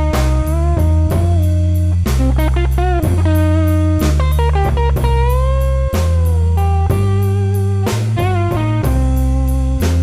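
Blues music: an electric guitar playing lead with bent, sustained notes over bass and a steady drum beat.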